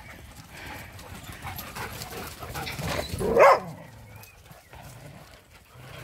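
A dog gives one loud bark about halfway through, with fainter dog noises around it.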